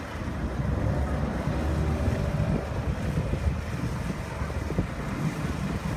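Twin diesel engines of a Severn-class RNLI lifeboat running as it manoeuvres slowly off a pontoon, a steady low rumble, with water gushing from its hull outlets and wind buffeting the microphone.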